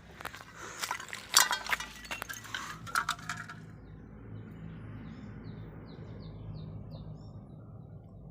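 A quick run of hard clinks and knocks for about the first three and a half seconds, loudest about a second and a half in. Then a low steady background with a few faint, short, high chirps.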